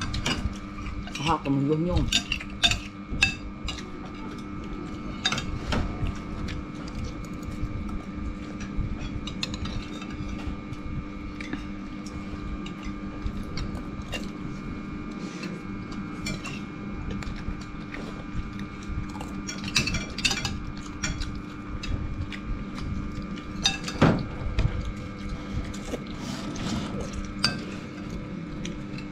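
Metal spoons clinking and scraping against ceramic bowls while people eat: scattered sharp clinks every few seconds, one of the loudest late on, over a steady low hum.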